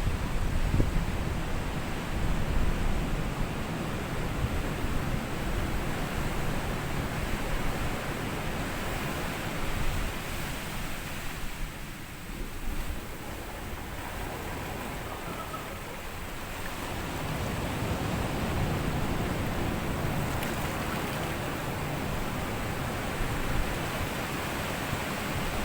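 Sea waves washing up onto a sandy beach in a continuous wash of surf, easing off about halfway through and swelling again a few seconds later.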